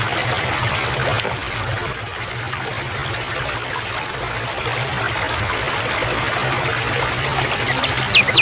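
Steady flow of water, like a stream or trickle running evenly. A bird's quick falling chirps come in just before the end.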